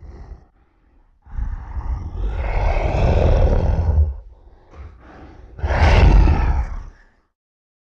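Creature roar sound effect: a long rough roar of nearly three seconds, then after a brief quieter rumble a second, shorter roar that cuts off sharply.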